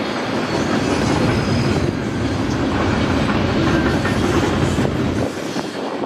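Double-stack container freight train rolling past, with a steady rumble of wheels clattering over the rails. The deep rumble drops away about five seconds in and the sound begins to fade.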